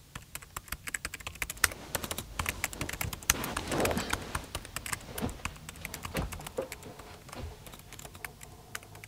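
Rapid, irregular clicking and tapping, many clicks a second, louder around the middle and tapering off before stopping near the end.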